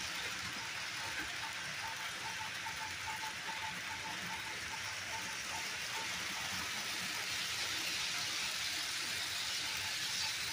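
HO scale Bachmann model trains rolling on their track: a steady rolling hiss and motor hum, with a light regular ticking of about three a second.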